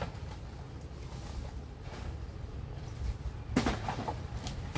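Knocks and clatter from a mobile home's roof being torn off, with a burst of knocks about three and a half seconds in and one more just after, over a steady low rumble.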